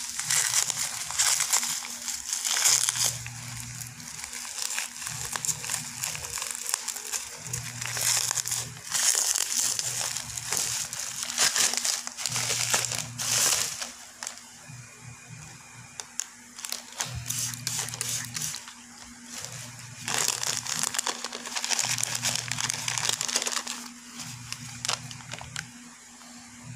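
Bubble-wrap plastic packaging crinkling and crackling as it is handled and unwrapped, in irregular bursts that ease off for a few seconds midway.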